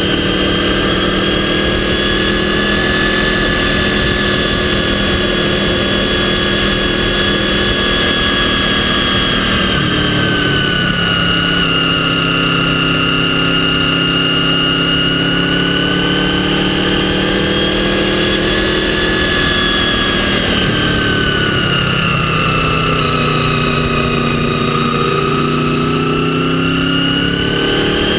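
Motorcycle engine running under way, with a high whine that rises and falls with engine speed over a constant rush of wind and road noise. The pitch drops twice and comes back up, as the engine eases off and picks up again.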